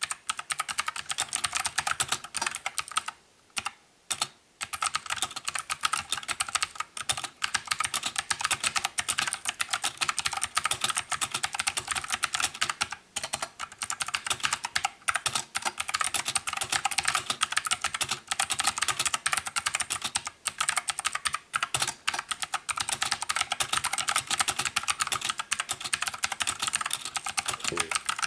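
Fast, steady typing on a mechanical keyboard with blue switches: a dense run of sharp key clicks, with a couple of brief pauses a few seconds in.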